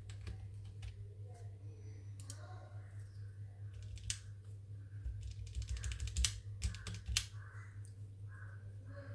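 Keychron K8 Pro mechanical keyboard with Gateron Brown switches being typed on: scattered key presses, a quick run of rapid clicks about six seconds in, and a few louder key strokes. A steady low hum sits underneath.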